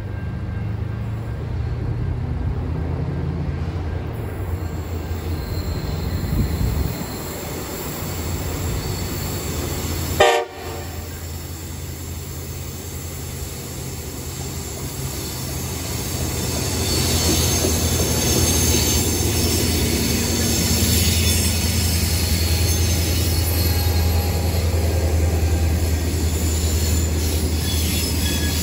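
Aurizon grain train with five diesel locomotives in the lead (four CM class and one CLP class) approaching and then passing. A low diesel rumble grows louder over the second half, with high-pitched wheel squeal from the wagons in the last ten seconds. About ten seconds in there is a single brief, sharp sound, the loudest moment.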